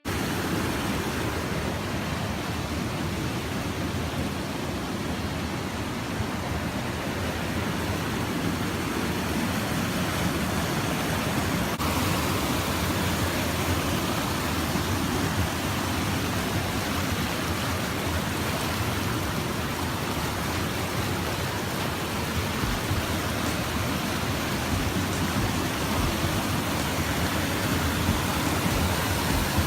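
Stream water rushing in a steady, even wash of sound.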